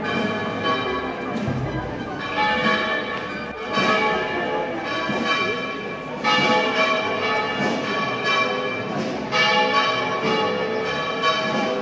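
Church bells ringing, several bells struck in turn so that their ringing overlaps and never dies away, with a few louder strokes some seconds apart.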